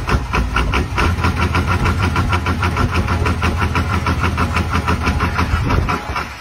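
Secondhand diesel engine running on a test run with a rapid, even pulse of firing strokes over a deep rumble. The low rumble drops away near the end.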